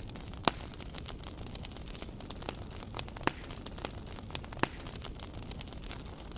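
Wood campfire crackling: a steady hiss with irregular sharp pops and snaps. The loudest pop comes about half a second in, and smaller ones come every second or so after.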